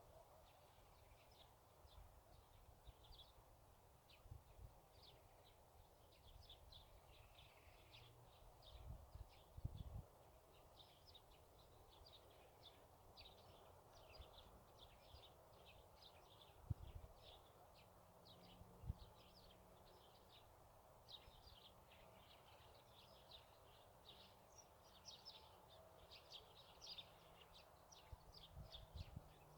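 Faint birds chirping: many short, high chirps repeated over and over, with a few low thumps.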